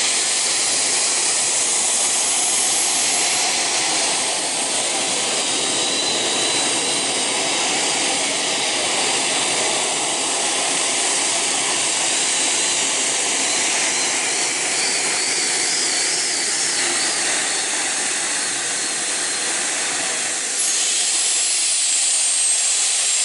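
Gas-turbine-powered mini unlimited pulling tractor running at full power under load through a pull: a loud, steady jet-like noise with a thin high whine that climbs over the first few seconds and drops away near the end.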